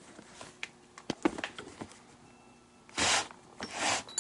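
Leather lace being drawn through the lace holes of a baseball glove with a lacing needle. A few light clicks and taps come first, then two longer rustling pulls about three seconds in.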